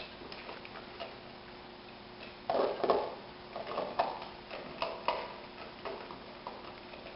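A fork stirring pancake batter in a glass bowl: soft scraping at first, then from about two and a half seconds in, an irregular run of clinks and taps of the fork against the glass.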